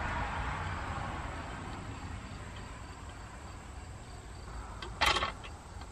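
Faint steady chirping of insects, with one short, sharp clatter about five seconds in.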